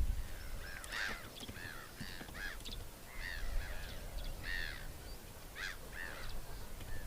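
A flock of flamingos calling: about a dozen short, nasal, honking calls, overlapping at times, spread through the seven seconds.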